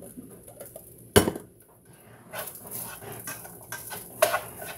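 Ice clinking in a glass mason-jar mug as it is sipped through a straw and set down, with a sharp knock about a second in and a run of light clinks and scrapes in the second half.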